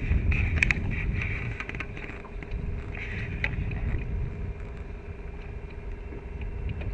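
Wind rumbling on the microphone over a steady hum aboard a small fishing boat. Splashing and clatter come in the first second and again around three seconds, as a small smallmouth bass is pulled from the water over the gunwale by hand.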